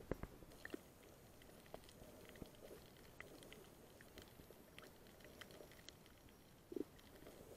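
Faint underwater ambience muffled by an action camera's waterproof housing: scattered small clicks and crackles with a few soft bumps, one stronger about seven seconds in.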